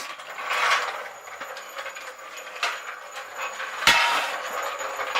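Metal-on-metal handling noise: scraping and rattling, then one sharp metallic clank with a brief ring about four seconds in.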